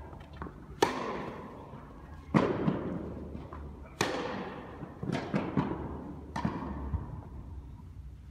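Tennis ball struck back and forth by rackets in a rally, three sharp hits that echo through the indoor hall, followed by a quick run of lighter knocks about five to six and a half seconds in.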